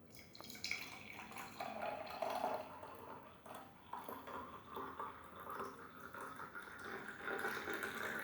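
Hot herbal kadha being poured through a strainer, the liquid faintly trickling and dripping.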